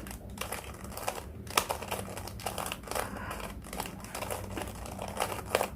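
Plastic 3x3 Rubik's cube being twisted quickly by hand, a rapid, irregular clatter of clicks as the layers turn. It is a cheap cube that its owner finds stiff to twist.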